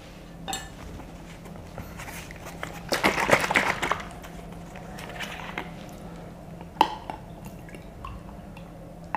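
A one-litre plastic bottle of borhani being handled and its cap unscrewed, with a burst of plastic crackling about three seconds in and a single sharp click near seven seconds. Near the end the drink is poured into a glass.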